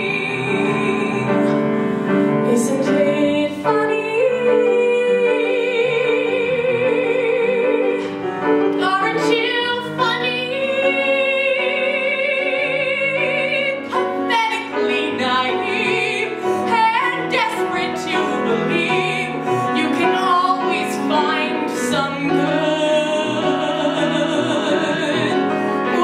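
A young woman singing a musical-theatre solo with piano accompaniment, holding notes with vibrato.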